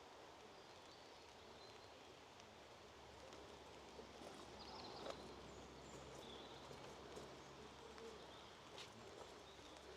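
Faint woodland ambience: a low steady hiss with a few faint, high bird chirps scattered through it.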